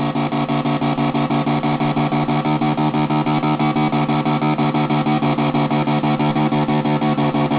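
Breadboard Lunetta-style synth: a 555 timer oscillator stepped by a 4017 sequencer and fed through a 40106/4066 ring modulator, sounding a steady electronic tone of several pitches at once with a fast, even pulse. The four step pots modulate each other instead of giving four separate notes.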